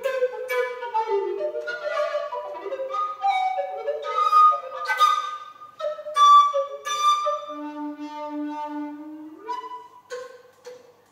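Solo wooden recorder playing a single melodic line of short, sharply tongued notes. The notes climb to loud high ones in the middle, drop to a low repeated note about three-quarters through, and end in short, softer notes.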